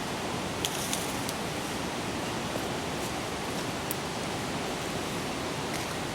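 A steady outdoor rush of background noise, with a few light crackles about a second in and again near four seconds, such as leaves being handled.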